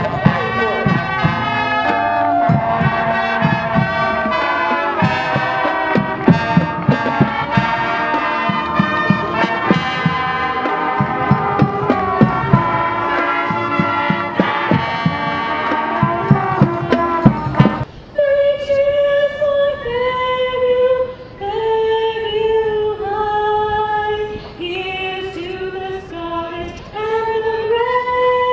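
Marching band music with brass and drum hits. About two-thirds of the way through it cuts abruptly to a woman singing solo into a microphone, holding long notes.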